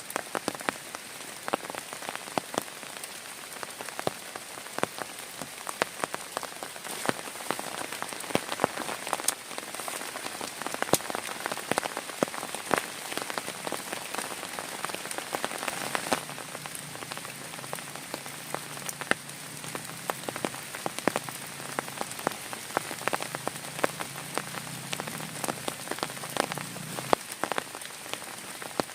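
Heavy rain falling steadily: a constant hiss with many sharp drops striking a nearby surface.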